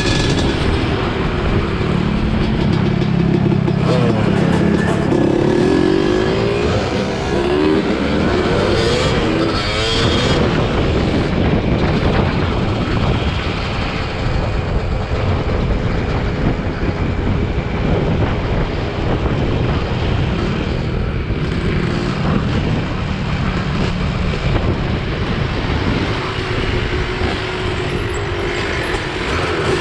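Several dirt bike engines running together, with revving that rises and falls in pitch between about 4 and 10 seconds in.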